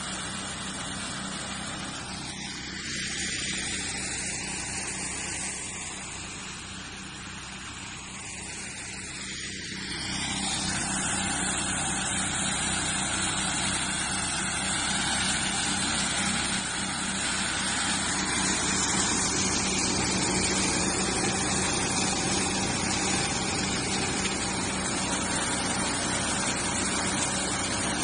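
5TGS-60-2C multi-crop thresher running steadily: a constant hum under a dense rushing noise, which grows louder and fuller about ten seconds in.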